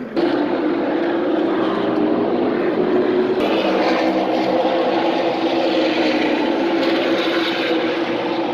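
NASCAR V8 race engines running, a loud steady drone with a clear pitch. The sound shifts slightly about three and a half seconds in.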